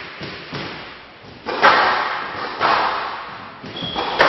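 Three hard thuds a second or more apart, each echoing away through a large hall, typical of a squash ball struck against the walls of a glass show court; a short high squeak just before the last.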